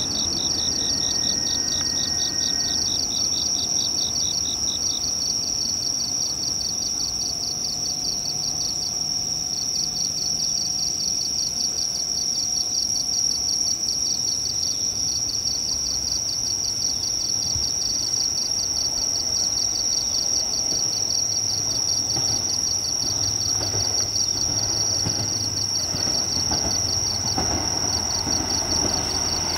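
Night insects chirping: a steady high trill with rows of rapid pulsed chirps over it. In the last third a low rumble builds as a KiHa 200 diesel railcar approaches.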